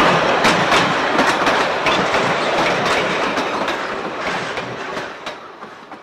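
Heritage railway passenger carriages rolling past, their wheels clicking over the rail joints in a steady clickety-clack over a rumble. The sound fades away as the last carriage pulls off down the line.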